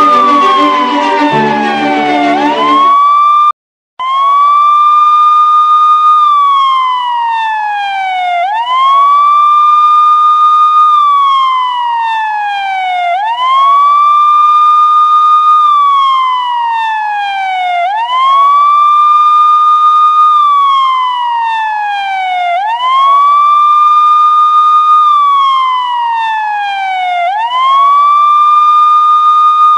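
Siren wailing in a slow repeating cycle, about every four and a half seconds: a quick rise, a held high note, then a long slide down. Music plays under it for the first few seconds, and the sound cuts out for a moment just before four seconds in.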